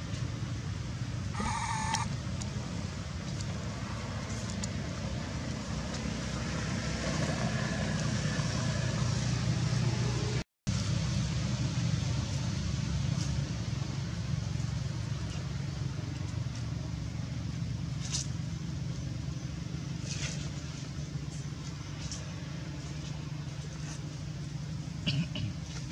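Steady low background rumble, with a short high-pitched squeal about one and a half seconds in. The sound drops out briefly near the middle.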